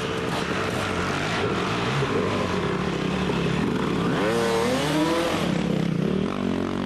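Dirt bike engines running and revving under load on a hill climb, with one engine's pitch rising sharply about four seconds in.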